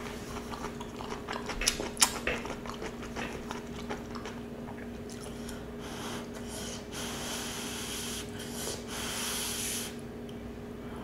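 Close-miked chewing and slurping of penne pasta, with a couple of sharp clicks about two seconds in and a run of hissing slurps from about six to ten seconds in. A faint steady hum lies underneath.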